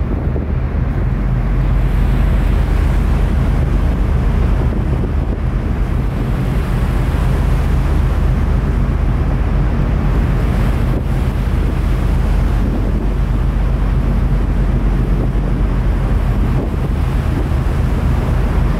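Wind rumbling on the microphone aboard a moving ferry, over a steady low hum from the ship's engines and the rush of sea water past the hull.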